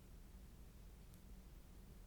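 Near silence: faint room tone with a low hum, and one faint click about halfway through.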